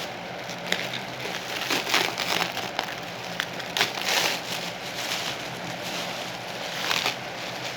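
Plastic packaging crinkling and rustling in irregular bursts as a parcel is handled and unwrapped by hand, loudest about two, four and seven seconds in.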